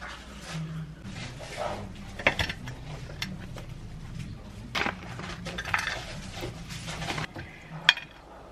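A plate and spoon clinking as bagel halves are set on the plate and toppings are spooned on: a few separate sharp clinks, the loudest near the end, with soft rustling of handling between them.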